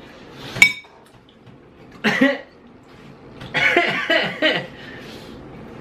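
A man coughing from the heat of spicy noodles: one rough cough about two seconds in, then a run of coughs about a second later. A sharp click comes about half a second in.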